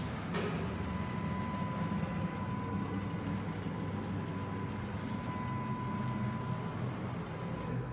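Hydraulic paper guillotine's motor and hydraulic pump running with a steady low hum and a faint, steady high tone, dropping away near the end.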